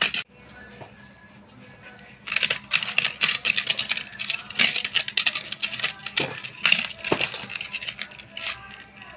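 Fingers scraping and mixing a thick spice-and-cornflour paste against the inside of a stainless steel pot. A quick run of scrapes starts about two seconds in and eases off near the end.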